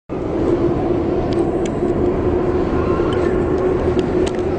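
Vehicle engine running amid road traffic noise: a steady drone over a noisy rumble, with a few light clicks.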